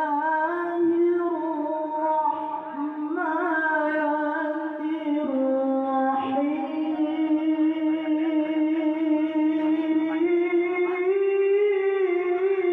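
A qori's voice chanting Quran recitation in long, drawn-out melodic phrases, each note held and ornamented with small turns. The pitch steps higher about ten seconds in.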